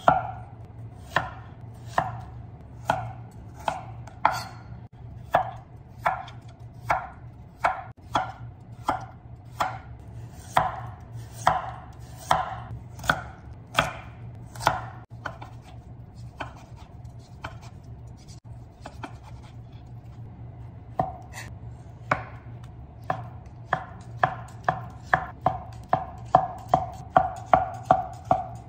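Chef's knife slicing daikon radish and carrot on a thick wooden cutting board: a steady run of sharp chops, about one to two a second, quickening to a faster rhythm over the last several seconds. A faint low steady hum runs underneath.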